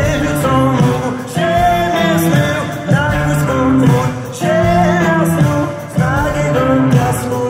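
Live rock band playing a song with a male lead vocalist singing in phrases, heard from the audience.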